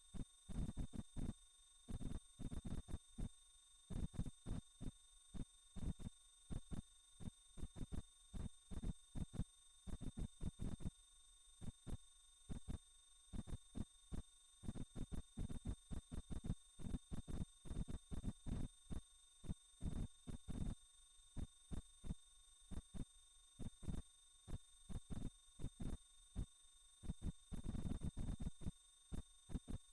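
A steady, very high-pitched sine tone, pulsing rapidly and evenly in loudness, with faint low rumbling beneath: a generated sound-healing frequency tone.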